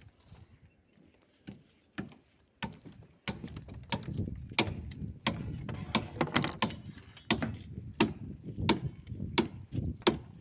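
Repeated sharp strikes of construction work, about one and a half a second, over a low rumble that comes in about three seconds in.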